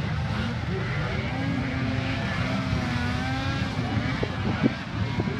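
Several racing snowmobile engines running hard at once, their overlapping pitches wavering up and down as the sleds accelerate around the track.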